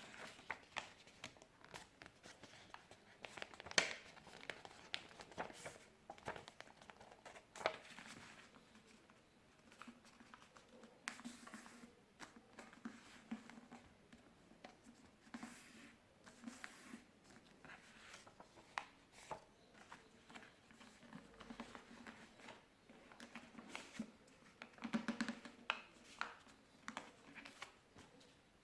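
A sheet of paper being folded and creased by hand: faint rustling and crinkling broken by many short, sharp taps and scrapes.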